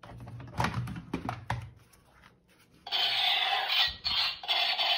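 Plastic toy guns knocking and clattering as they are picked up and handled, followed about three seconds in by a loud, steady rasping noise that runs on.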